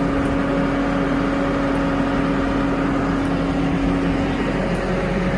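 Farm tractor engine running steadily with a constant drone, working while palm kernel feed is loaded into a trailer.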